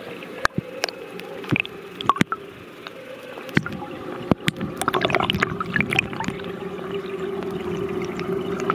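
Reef aquarium water gurgling and bubbling over a steady pump hum, with scattered sharp clicks and knocks; the gurgling grows louder from about five seconds in.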